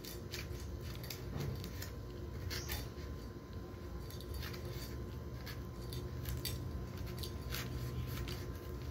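A knife cutting into a green banana stalk to separate the hands from the bunch. It makes irregular crisp cutting and cracking sounds over a steady low background hum.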